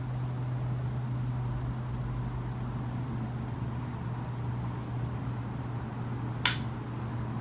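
Steady low hum with an even hiss of room noise, and one sharp click about six and a half seconds in.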